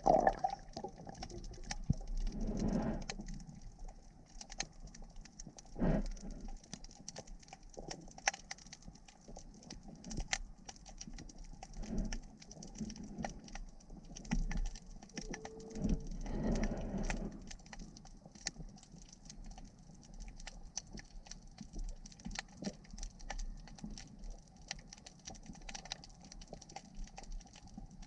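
Underwater ambience: a dense, irregular crackle of tiny clicks and pops, with a few louder low whooshing swells.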